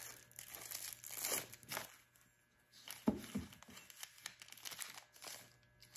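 Faint crinkling of clear plastic wrapping and light clicks as the steel mandrels of a valve seat cutter kit are handled, in short scattered bits.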